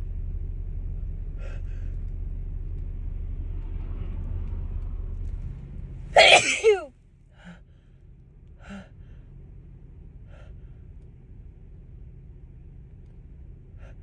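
A woman sneezes once, loudly, about six seconds in, the pitch falling through the sneeze. Before it a low steady rumble runs and stops just before the sneeze, and a few faint short sounds follow it.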